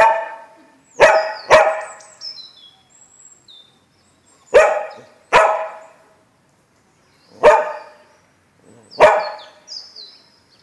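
Lagotto Romagnolo dog barking at a cat: six loud single barks, some in quick pairs, with gaps of up to two seconds between them.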